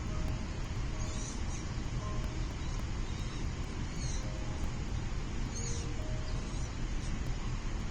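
A few short, high-pitched bird chirps, about four spread through, over a steady background rumble of wind or distant traffic.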